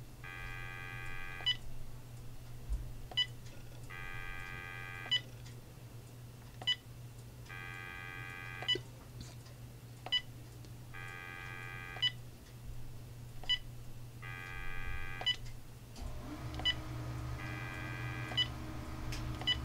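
Uniden EXAI7980 cordless phone handset switched on and off again and again: a short key beep at each press of the talk button, with a burst of electronic tone lasting about a second as the handset links to its base, repeating five or six times. Near the end a steadier low tone joins in as the handset stays connected.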